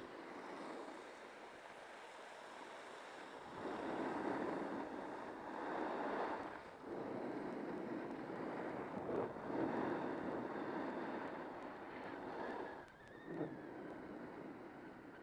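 Skis scraping and hissing over groomed snow, swelling and fading with each turn, with wind rushing over the microphone. It gets louder about a third of the way in.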